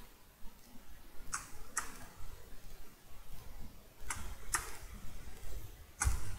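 Computer keyboard keys clicking: five short, sharp clicks, in two pairs about half a second apart and a single one near the end.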